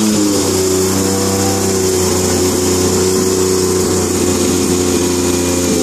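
Newly rebuilt three-rotor Mazda rotary engine in an RX-7 FD3S running at a fast idle, kept alive with a little throttle just after its first start. The note dips slightly in the first second, then holds steady.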